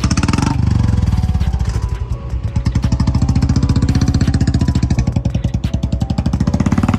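Royal Enfield Bullet 350 BS6 single-cylinder engine on its stock exhaust, running with an even thump. It is loudest about the first second, drops off about two seconds in, then runs steadily and swells briefly just before the end.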